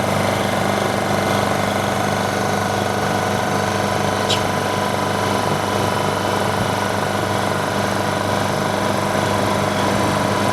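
Vacuum pump of an OCA vacuum laminating machine running steadily, drawing down the chamber's vacuum during a lamination cycle. A single brief click sounds about four seconds in.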